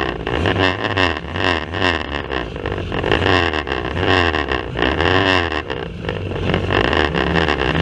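Banger racing cars' engines revving hard and rising and falling in pitch as they race, over a rough, rattling recording with frequent knocks.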